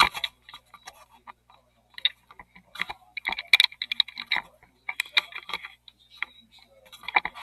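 Irregular clicks, taps and rubbing from a camera being handled and repositioned on its mount.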